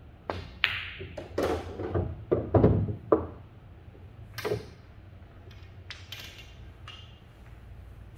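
Pool balls on a Diamond pool table: a sharp click of the cue tip on the cue ball and a click as it strikes an object ball, then a run of knocks and thuds as balls hit cushions and one drops into a pocket. A few lighter ball clicks follow later.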